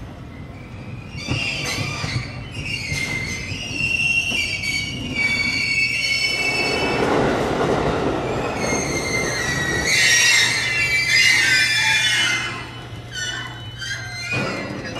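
JR Freight EF210 electric locomotive running slowly past, its wheels squealing in a series of high, wavering squeals over a steady low hum.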